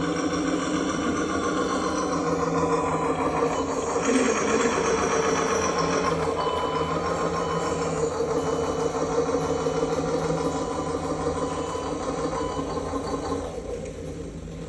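Small electric motors and gearboxes of radio-controlled construction models running steadily, a continuous mechanical whine and hum that eases off near the end.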